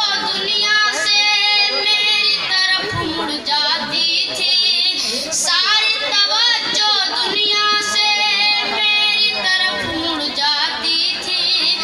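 A boy singing solo into a microphone, with long held notes that waver in pitch.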